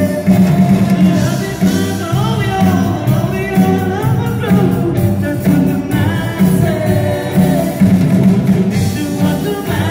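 A live rock band plays, with a male voice singing into a microphone over electric guitar and a steady pulsing bass line.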